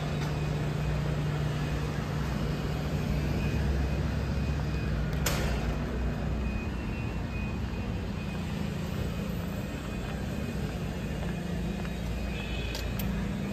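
City street traffic: the steady low hum of vehicle engines with a rumble beneath, a sharp knock about five seconds in and two light clicks near the end.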